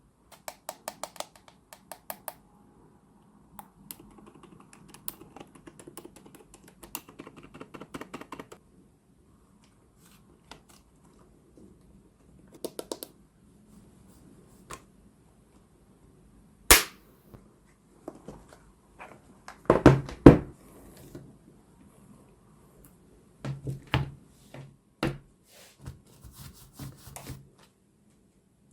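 A keyboard and its packaging being handled: scattered light clicks and taps with soft rustling, and a few sharp knocks as it is set down, the loudest a little past the middle.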